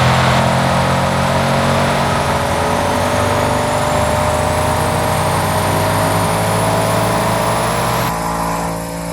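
Audi RS6 C8's twin-turbo V8 through an Akrapovič Evolution Line titanium exhaust, pulling under load with the revs climbing slowly and steadily. The sound thins out and drops near the end.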